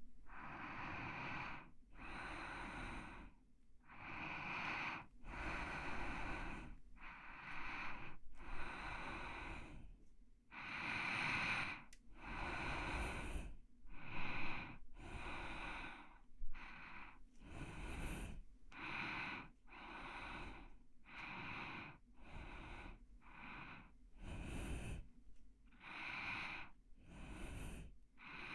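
Close-miked human breathing, slow and soft, a steady run of in- and out-breaths each about a second long with short pauses between.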